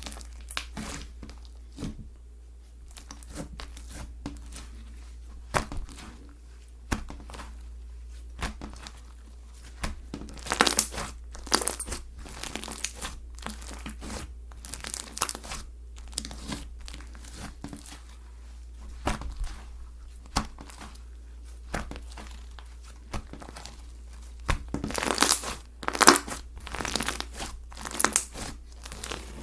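Slime being squished, pressed and stretched by hand, giving a run of many small clicks and pops, with louder bouts about ten seconds in and again near the end.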